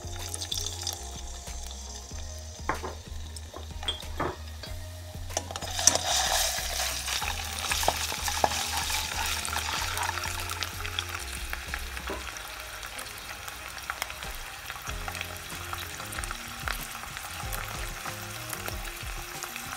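Garlic ginger paste frying in hot ghee in a pan while being stirred: a few light utensil knocks, then about six seconds in a loud sizzle starts and keeps going under the stirring.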